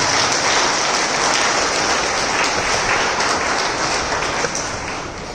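A congregation applauding heartily, a dense patter of many hands that tapers off near the end.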